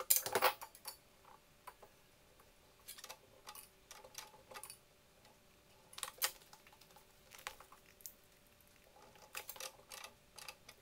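Scattered light metallic clicks and taps as a wrench works on the gas line fittings at an oven's gas valve, the loudest right at the start, then in small clusters every second or two.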